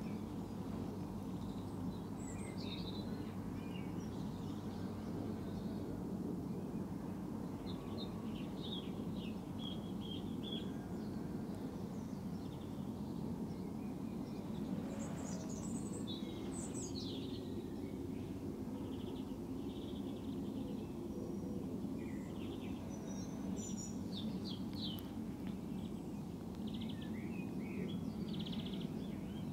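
Small birds singing and chirping in short, scattered phrases over a steady low background rumble.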